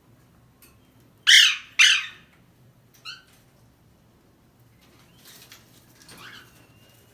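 Parrot calls: two loud, harsh screeches in quick succession about a second in, a short chirp a little later, then fainter calls near the end.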